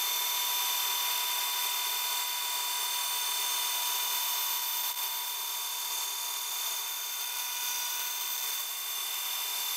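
Band saw resawing a very thin strip, about 25 thousandths of an inch, off a board, played back at ten times normal speed. A steady, high-pitched whir with no low end.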